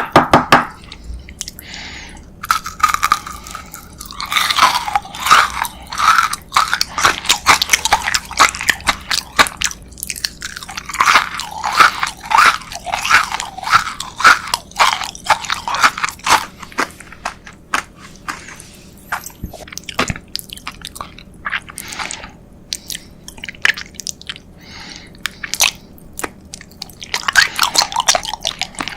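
Close-miked chewing with many sharp crunches coming in clusters, from biting into a crunchy sweet, with a few brief pauses between mouthfuls.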